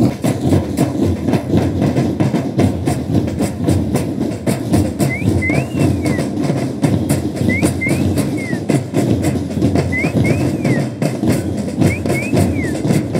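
Drums beaten in a fast, dense rhythm, as from a school drum band. A high two-part chirp repeats four times, about every two and a half seconds.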